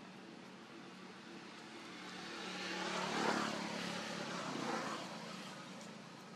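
A motor vehicle passing by, its noise swelling to a peak about three seconds in and then fading away.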